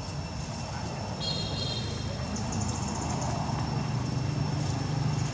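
Outdoor background with a steady low hum and a thin, high steady tone. About a second in there is a brief high-pitched chirping call, followed by a faint rapid ticking.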